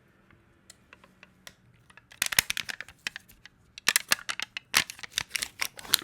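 Plastic dessert packaging being handled and opened close to the microphone: quiet for the first two seconds, then a dense run of sharp crinkles and clicks.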